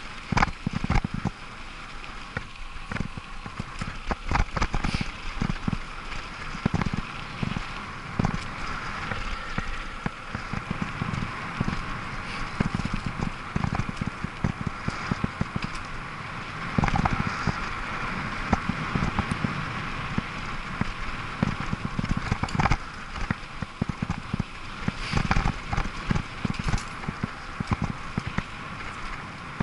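Bicycle rolling over a rough dirt forest track, with tyre noise and many irregular knocks and rattles as the bike jolts over bumps.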